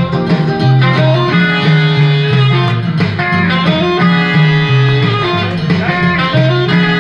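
Music led by a plucked guitar, with a bass line moving under it.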